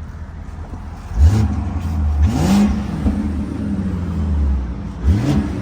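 BMW E60 550i's V8 engine running, its speed rising sharply three times in quick surges of revs, now firing smoothly on all cylinders after new ignition coils and spark plugs cured its misfires.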